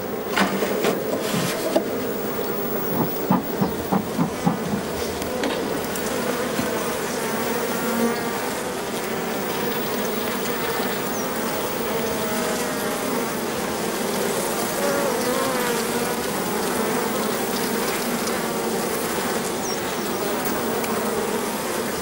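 Honeybee colony buzzing as a dense, steady hum while a bee-covered comb is lifted out of a wooden hive. A few knocks sound in the first few seconds.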